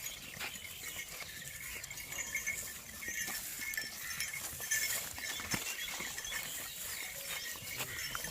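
Punganur cattle moving about: scattered light knocks and taps of hooves, over a steady high chirping in the background.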